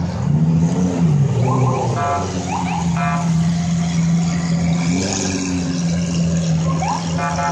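Lamborghini Aventador V12 engines blipped twice in quick revs, then running steadily at low speed as the cars roll past.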